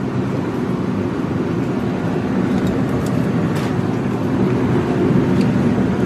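Steady low mechanical hum and rumble, with a few faint clicks.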